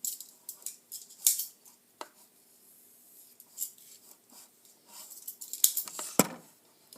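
Plastic clicks and rattles from handling a toy M1 Garand rifle, a few sharp snaps spread out, with a cluster near the end.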